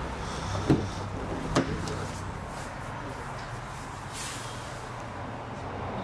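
Two sharp clicks about a second apart, typical of a Jaguar F-Pace's door handle and latch being worked to open the door, over a steady low hum, with a brief rustle about four seconds in.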